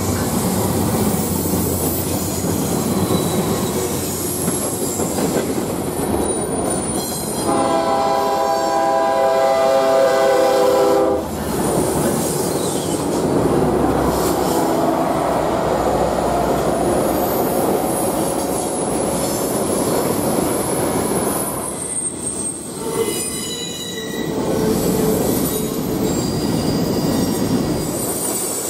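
Norfolk Southern GE diesel freight locomotives passing close by with engines running, then freight cars rolling past with steady wheel-on-rail rumble, clatter and some wheel squeal. A multi-note locomotive horn sounds one long blast of about four seconds, starting about seven seconds in.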